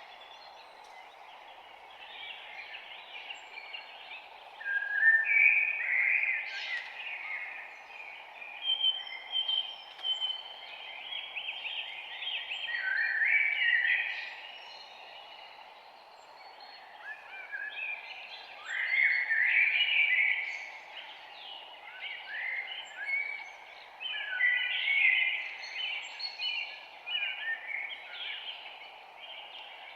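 A chorus of several songbirds singing and chirping, with short overlapping calls and trills coming in busy bursts, over a steady background hiss.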